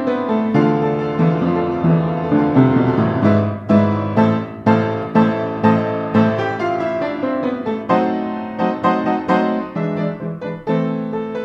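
Piano music, many quick notes in succession.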